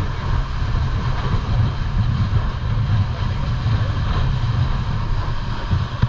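Steady wind rumbling on the microphone of a small open motorboat under way, with the boat's running noise underneath.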